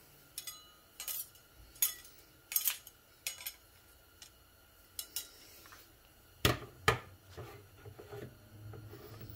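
Steel clutch plates ("steels") for a Ford C6 transmission clutch pack clinking against one another and the bench as they are gathered up and handled: a string of sharp metal clinks, with two louder ones close together about two-thirds of the way through.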